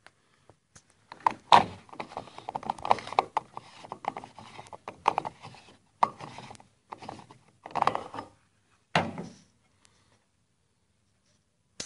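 Plastic fuel filler cap of an Opel Vectra being gripped, turned and unscrewed by hand. Irregular clicks, rattles and scrapes come in stops and starts for most of the time, then die away about nine seconds in.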